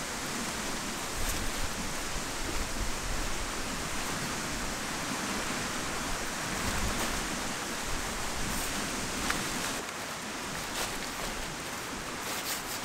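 Steady rushing of wind through the trees and scrub, an even hiss with no distinct events, and a few faint ticks of cord handling near the end.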